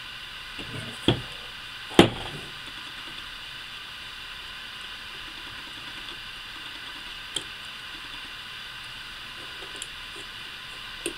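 Screwdriver and Daisy Powerline 880 air-rifle parts handled while the rear sight is screwed on: two sharp knocks about one and two seconds in, the second the loudest, then a few light clicks, over a steady hiss.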